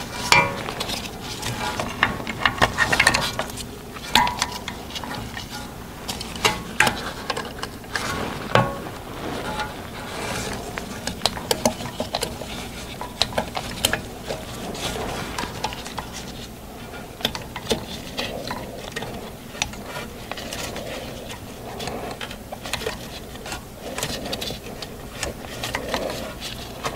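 Pliers clamped on a stuck ABS wheel speed sensor, rocked back and forth to work it out of its bore: irregular metallic clicks, clinks and scrapes, a few sharper knocks among them.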